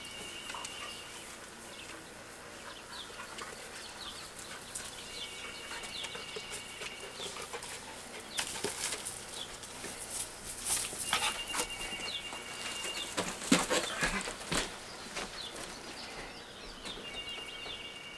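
Dogs rummaging in a hedge and among torn paper: rustling and crackling that grows busier in the middle, with one sharp crack about two-thirds through. A bird's even trill repeats about every six seconds in the background.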